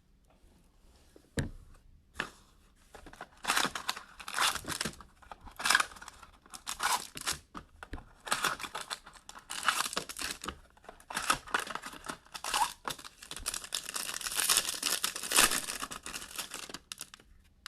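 Plastic wrapping being torn open and crinkled by hand in quick, irregular bursts, with a single sharp click about a second and a half in.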